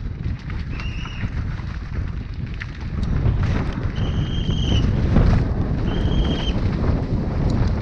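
Helmet-camera audio of a downhill mountain bike descending at speed: wind buffeting the microphone and a constant rumble of tyres and suspension over rough dirt, with frequent knocks, getting louder about three seconds in. A few short high-pitched squeals cut through the noise, twice near the middle and end.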